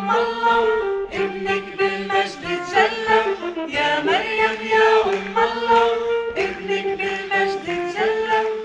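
Choir singing a slow melody in long held notes that change pitch every second or so.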